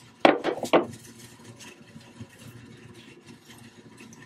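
Three quick hammer knocks on the wooden box's panels, about a quarter second apart, shortly after the start.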